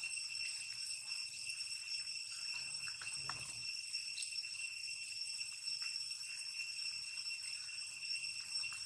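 Steady high-pitched insect drone, holding one pitch with overtones above it, with a brief faint rustle about three seconds in.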